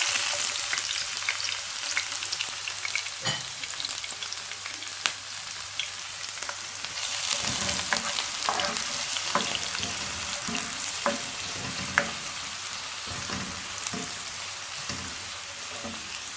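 Spring onions sizzling in hot coconut oil in a pan, with a spoon clicking and scraping as they are stirred. The sizzle sets in sharply at the start and eases off slightly toward the end.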